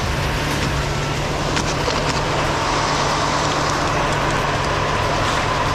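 Steady rushing noise of a snowboard sliding over snow while being towed uphill.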